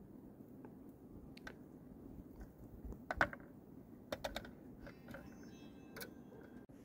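Wire grill basket of fish clinking and rattling as it is handled and moved off the wood fire, a few light clicks with the loudest about three seconds in and a quick run of clinks about a second later.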